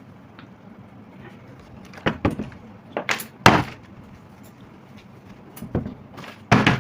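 A plastic water bottle flipped and landing, giving a series of sharp knocks and thuds, about six in all, with quiet room tone between them.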